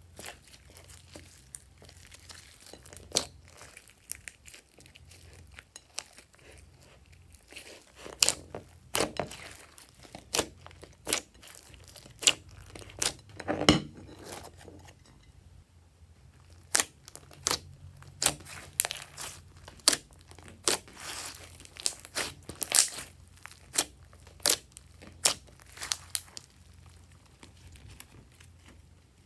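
Slime being kneaded, stretched and squeezed by hand, giving irregular sticky pops and crackles. They are sparse and soft at first, then come thick and fast from about a third of the way in.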